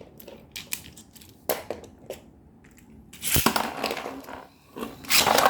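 Hard plastic Beyblade parts clicking as they are handled, then a sharp knock about three seconds in, followed by a second or so of rough, loud scraping.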